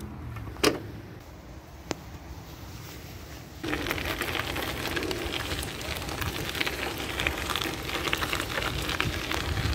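A bicycle's metal kickstand is flipped up with a sharp click about a second in, followed by a second, smaller click. From about four seconds in, the bicycle's tyres roll over loose gravel with a steady crunching crackle.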